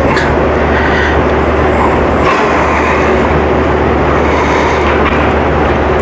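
Steady machinery noise: an even rush with a low hum underneath, starting and stopping abruptly.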